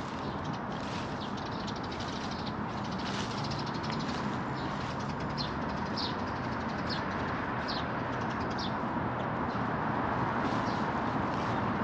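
Footsteps at a slow walking pace, short high crunches about once a second, over a steady hum of distant city traffic.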